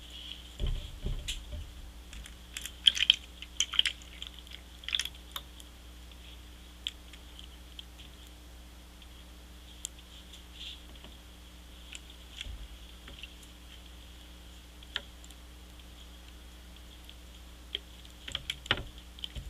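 Plastic water bottle crinkling and clicking in the hand as water is poured from it into a plastic ice cube tray: scattered light clicks and crackles, busiest in the first few seconds and again near the end.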